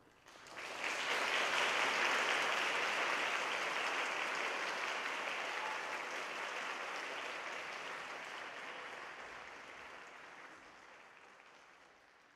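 Audience applauding: it starts about half a second in, swells quickly, then slowly dies away.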